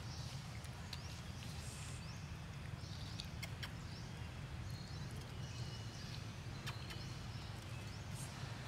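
Outdoor forest ambience: a steady low rumble with scattered short, high chirps and a few sharp clicks.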